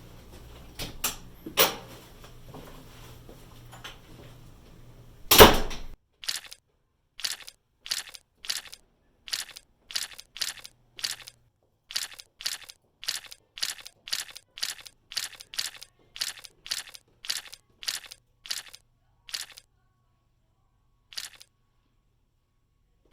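A loud, sharp bang about five seconds in, then a long run of evenly spaced sharp clicks, about two a second, that stops a few seconds before the end, with one more click after a pause. A low hum sits under the first part and cuts off with the bang.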